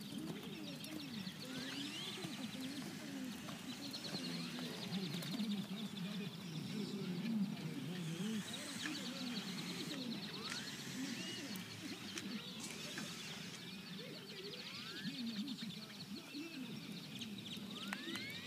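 Birds calling: short chirps and a rapid high trill that comes and goes several times, over a low wavering background.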